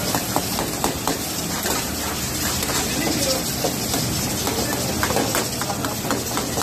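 Chicken karahi sizzling and bubbling in a large metal karahi while a long metal ladle stirs it, scraping and clinking against the pan again and again, in clusters at the start and about five seconds in.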